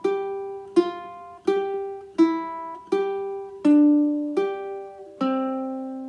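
Ukulele played one note at a time, a simple beginner melody on the notes of the C scale plucked at an even pace of about one note every three-quarters of a second. Eight notes in all; the last, lower note, starting near the end, is held and rings on.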